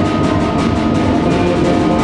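Concert wind band playing: sustained brass and woodwind chords over a fast, even percussion pulse.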